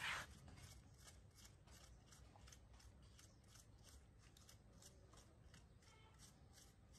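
Faint scraping of a metal spoon scooping out the flesh of an apple half: a quick run of short scrapes, several a second, with one louder rasping scrape at the very start.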